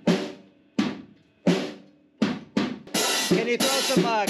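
Small drum kit being played: single drum strokes, each ringing out, come well under a second apart. About three seconds in, they give way to continuous crashing on the cymbals with fast hits.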